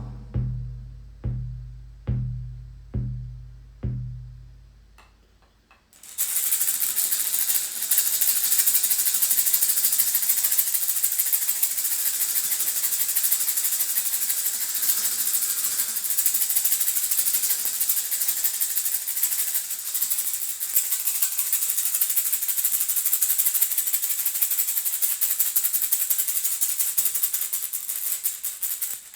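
A shamanic hand drum struck in slow, ringing beats that fade away over the first few seconds. After a brief pause, a hand rattle is shaken continuously and steadily for the rest of the time.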